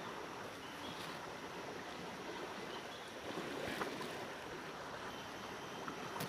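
Steady rushing of flowing river water, with a single short click a little under four seconds in.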